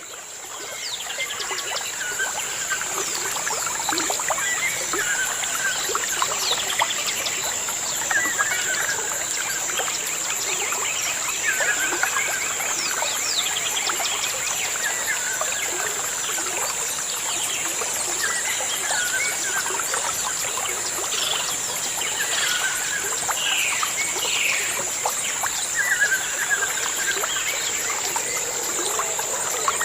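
Many small birds chirping and calling, with one short call repeated every few seconds, over a steady high-pitched hiss.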